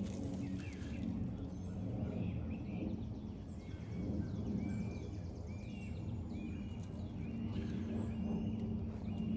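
Small birds chirping over and over in short high calls, over a steady low background rumble.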